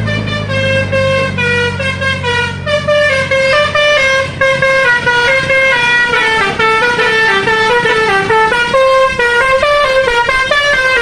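Tour bus's basuri musical air horn playing a tune: a quick, continuous run of short stepped notes. A low engine rumble fades out at the very start.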